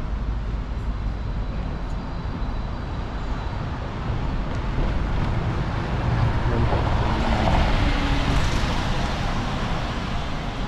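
Street traffic noise, with a vehicle passing that grows louder to a peak about two-thirds of the way through and then fades.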